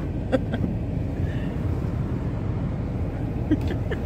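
Ford F-150 pickup's engine running steadily, a low rumble heard from inside the cab, with a few faint clicks early and again near the end.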